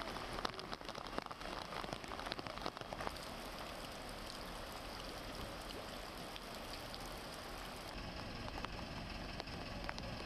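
Heavy rain falling on a flooded street: a steady hiss of rain and water, with many sharp drop taps in the first three seconds.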